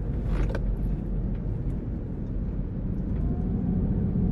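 Car driving along a road, heard from inside the cabin as a steady low rumble of engine and road noise.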